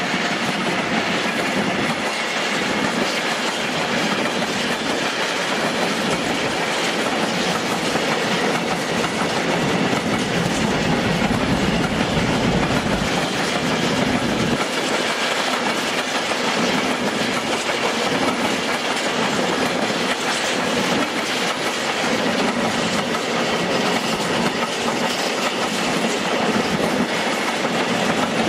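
Freight train of railway tank wagons rolling steadily past, their wheels running on the rails in a continuous, even rolling noise.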